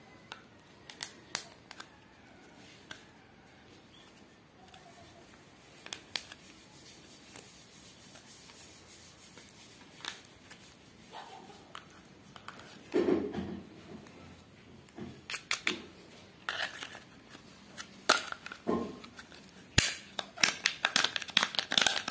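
Scattered clicks, scrapes and rustles of an electrical cable being pushed through a hole in a PVC pipe by hand, sparse and faint at first, then louder and more frequent in the second half.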